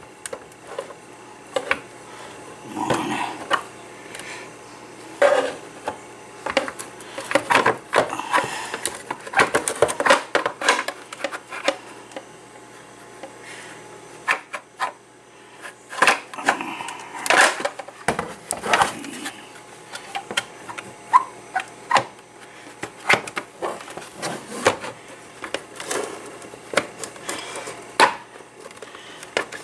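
Plastic shell of an iPulse jukebox being handled and pressed back together during reassembly: irregular clicks, knocks and scrapes of hard plastic parts.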